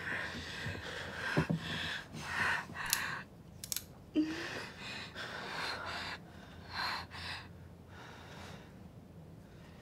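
A woman in labour breathing heavily in repeated gasping breaths, with a short voiced whimper about four seconds in and a couple of small clicks just before it; the breathing grows fainter near the end.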